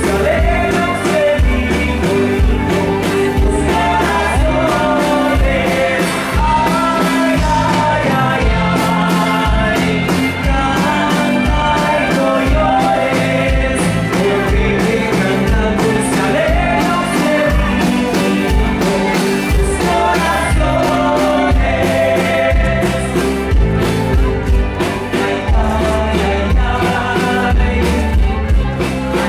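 Live band playing a rock song with a singer's voice over drums and guitar, the drums keeping a steady beat.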